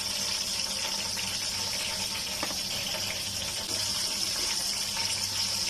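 Hot frying oil sizzling steadily in a pan after deep-frying eggplant and tomatoes, an even crackling hiss with a faint low hum under it.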